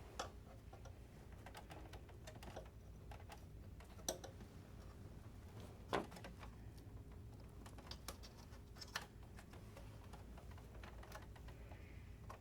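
Faint, scattered small clicks and taps of hands and tools working on a PS5's internal parts and cables, with a few sharper clicks about four, six and nine seconds in.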